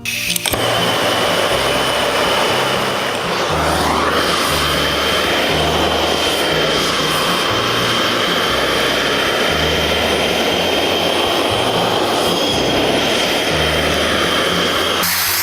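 Electric power tool running steadily under load, working the hammer: a constant high whine over a rushing noise that starts just after the beginning and cuts off suddenly near the end. Background music with a stepping bass line plays underneath.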